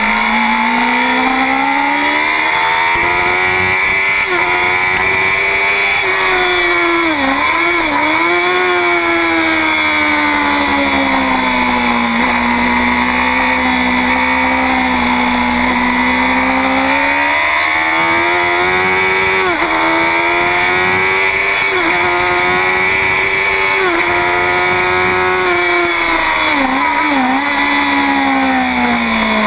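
2009 Honda CBR1000RR superbike's inline-four engine at racing speed, heard from on board: its pitch rises and falls through the corners, holds lower and steady for a long stretch in the middle, then climbs again, with two brief sharp dips, about a quarter of the way in and near the end.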